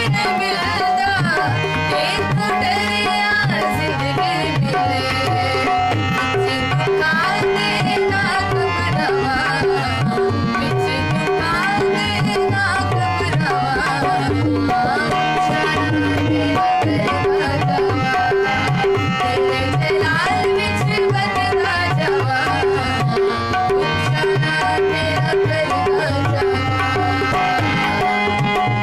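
Tabla drumming a steady rhythm under sustained harmonium notes, with a woman singing a devotional worship song over them.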